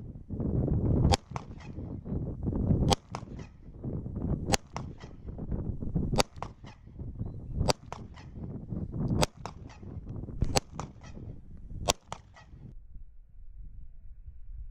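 Gunshots fired one at a time, about eight of them roughly a second and a half apart, coming slightly faster towards the end, each followed by a short echo, over a low rumble.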